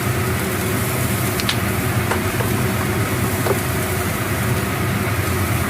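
Steady low mechanical hum with an even hiss from the running kitchen stove and ventilation, while a sauce simmers in the wok, with a few faint utensil clicks.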